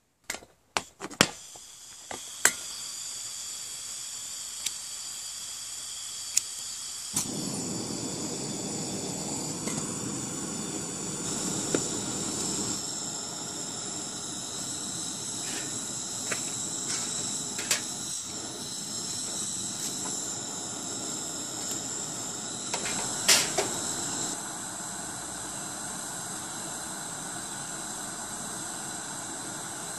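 Single-burner Coleman propane stove burning steadily under a metal popcorn tin, a gas hiss that grows louder and fuller about seven seconds in. A few metal clinks come as the tin is set on the burner at the start, and scattered sharp ticks follow.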